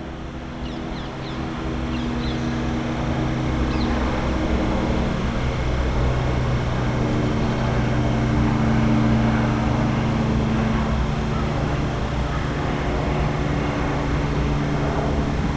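DB Class 425 electric multiple unit approaching and running through a station, with a steady electric hum made of several held low tones over rolling noise. It grows louder over the first few seconds and then holds steady, with a few short high chirps near the start.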